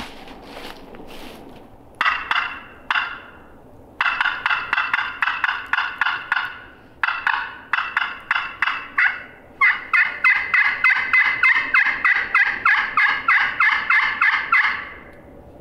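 Hen turkey yelping made on a hand-held turkey call, sounded loudly as a strike call to get a gobbler to answer. It comes in four runs of sharp notes, the last and longest a fast string of about five notes a second for some five seconds.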